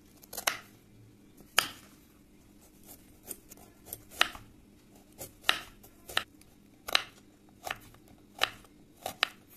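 Kitchen knife chopping cauliflower florets and then slicing a carrot into rounds on a wooden cutting board, each stroke a sharp knock on the board: a dozen or so at an uneven pace, roughly one a second.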